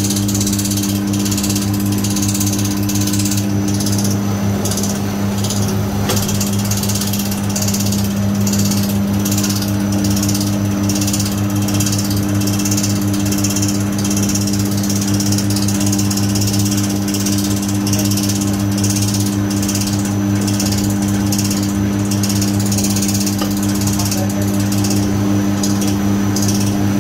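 Industrial electric vegetable cutting machine running: a steady motor hum under a rapid, rhythmic mechanical clatter from its cutting mechanism.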